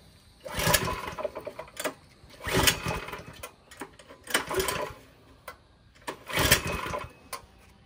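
Predator 212 single-cylinder four-stroke mini bike engine being pull-started four times, each pull a rattling whir of the recoil starter about a second long. The engine turns over but does not catch.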